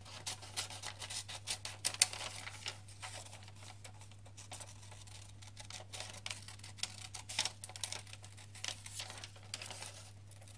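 Scissors cutting a heart shape out of paper, a quick, irregular run of snips and paper rustles.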